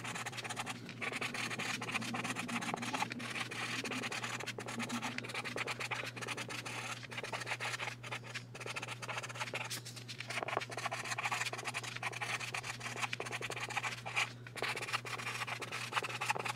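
Orange Sharpie marker writing on a pink card: the felt tip scratching across the paper in continuous strokes, with brief pauses as the pen lifts between words.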